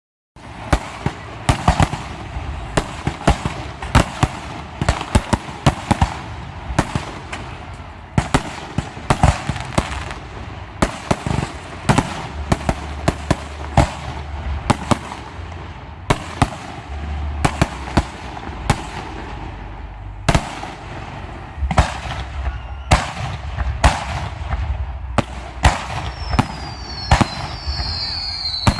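Aerial fireworks show: a rapid, irregular series of shell bursts and cracks, often several a second, over a steady low rumble. A few high whistles come in near the end.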